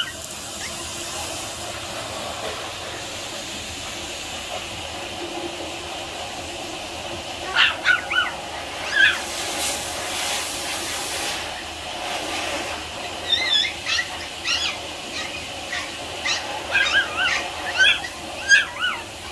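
Toy Pomeranian puppy whimpering and yipping in short, high-pitched calls, a few around eight seconds in and a quick run of them over the last six seconds, over a steady hiss.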